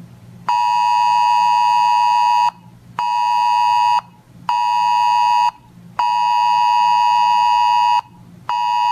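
Weather radio alert alarm: a loud buzzer-like beep near 1 kHz, sounding in a pattern of two-second and one-second beeps with half-second gaps between them, over a faint low hum.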